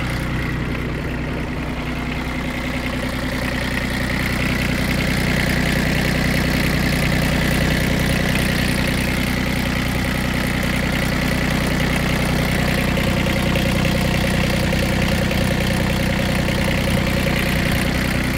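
Hinomoto CX14 compact tractor's diesel engine idling steadily.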